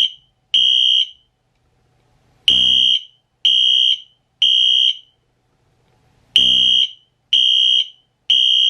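Wheelock Exceeder fire alarm horn sounding a temporal-3 evacuation pattern: loud, high-pitched blasts in groups of three, each about half a second long and about a second apart, with a pause of about a second and a half between groups.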